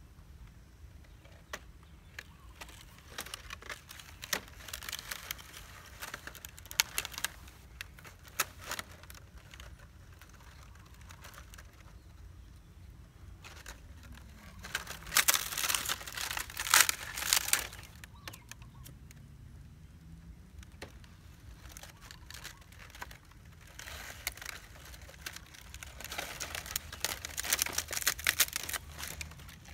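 Dry palm fronds crackling and rustling as they are handled, pulled and torn, in irregular bursts: loudest about halfway through and again near the end.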